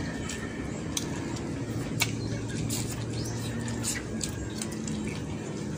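Close-up eating sounds: chewing and lip-smacking of fried chicken eaten by hand, with a few sharp clicks from fingers and plates. A faint low steady hum runs through the middle.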